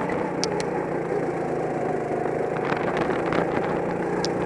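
Go-kart engine running steadily, heard from the driver's seat with road noise, as the kart takes a tight corner and heads onto a straight. Two short sharp ticks come about half a second in and near the end.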